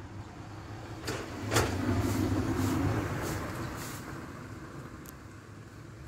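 A motor vehicle passing by: its engine noise swells about a second in and fades away over the next few seconds.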